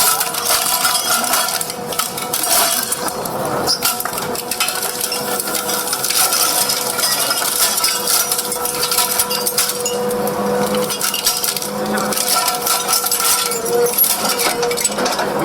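Seized vehicle air horns being crushed under a road-roller drum mounted on an excavator: continuous irregular crunching, cracking and metallic clinking, over the steady drone of the machine.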